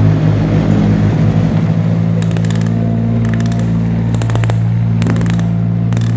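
Steady low engine-like drone from a toy vehicle, with groups of sharp plastic-sounding clicks from about two seconds in.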